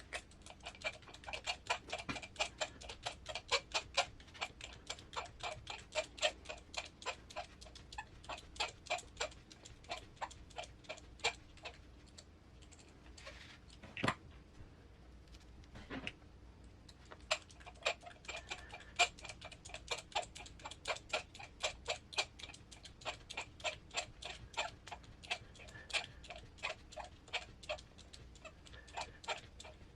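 Rapid, evenly spaced mechanical clicking, about four clicks a second, from small-parts work on an RC crawler transmission. It pauses for a few seconds in the middle, where there are two single louder knocks, then carries on.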